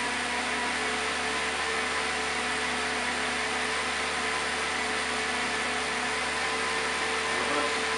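Turbo trainer whirring steadily as the rear tyre spins on its roller under continuous pedalling, an even whine over a hiss.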